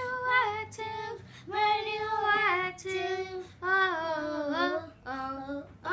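A young girl singing without words, a string of short phrases of held, wavering notes with brief pauses between them.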